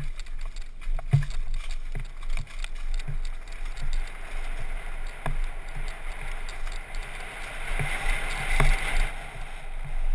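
Downhill mountain bike clattering and knocking over rocks and roots at speed, with a rushing noise of wind and tyres that builds to a peak near the end and then drops.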